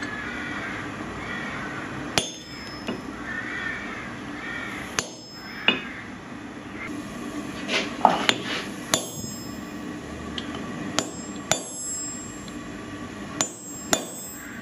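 Hammer blows ringing on a tool held against a red-hot spring-steel bar on an anvil: about a dozen sharp metallic strikes at an uneven pace, often in pairs.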